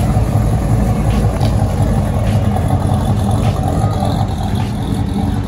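Engine and exhaust of a lowered square-body pickup truck rumbling steadily at low speed as it pulls away.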